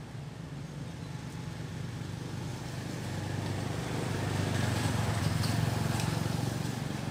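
A motor vehicle's engine drones steadily, growing louder to a peak about five seconds in and then easing off slightly near the end.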